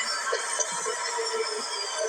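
Subway train standing at the platform: a steady electrical hum and whine of several held tones.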